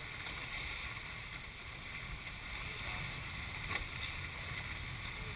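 Steady rush and hiss of water streaming past the hulls of a Hobie 21SE catamaran under sail, with low wind buffeting on the microphone. A brief click a little under four seconds in.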